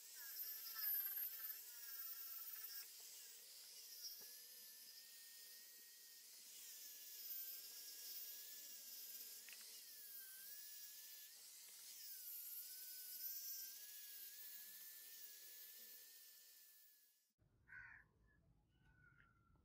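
Angle grinder with a sanding disc working the wooden grip and copper fitting of a sword hilt: a high whine that wavers in pitch. It stops near the end.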